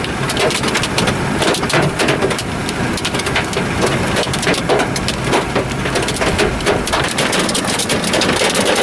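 Hail pelting a moving vehicle's roof and windshield, heard from inside the cabin as a dense, unbroken clatter of hard knocks over the low rumble of the car.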